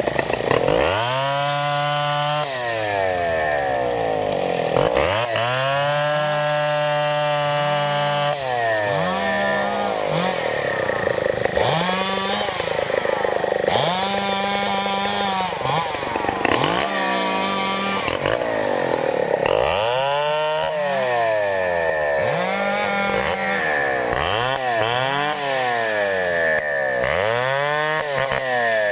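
Chainsaw limbing felled trees, revving up into the cut and dropping back to idle over and over. The first two runs last a few seconds each, then come shorter bursts every second or two.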